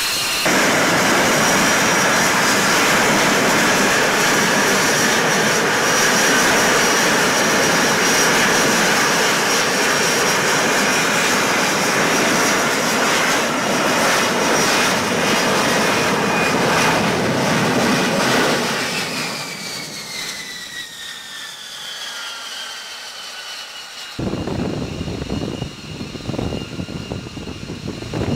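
F-35B jet engine and lift fan running loud in short-takeoff/vertical-landing mode, with a high whine over the jet noise. About two-thirds of the way through the engine winds down, its whine falling in pitch. Near the end it cuts to rougher jet noise from another F-35B.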